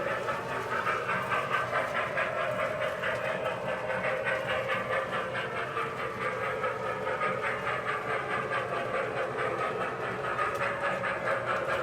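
Marx toy electric train running on its track: a steady whir of the locomotive's motor with the rattle of wheels rolling over the rails.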